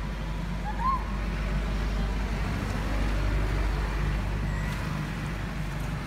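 Steady low engine rumble of nearby motor traffic, swelling a little in the middle. One short high squeak comes about a second in.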